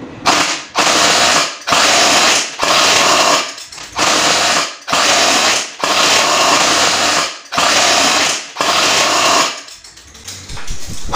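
Airsoft electric PKM support machine gun (AEG) firing about nine full-auto bursts of roughly a second each, with short gaps between, each burst a rapid mechanical rattle. This is a rate-of-fire test after a gunsmith's tune-up.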